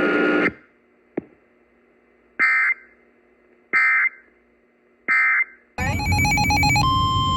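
Emergency Alert System end-of-message data bursts from a weather-alert broadcast: static cuts off, then three short, identical screeching bursts about 1.3 s apart. After them comes a warbling electronic tone over a low rumble, which gives way near the end to a steady single-pitch alert tone starting the next warning.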